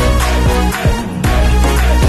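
Background music with a steady beat and heavy, sliding bass.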